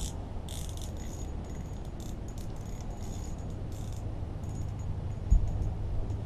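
Small spinning reel on a light ice-fishing rod being cranked in short spurts, its gears making quick clicky rattles, with a single low thud about five seconds in.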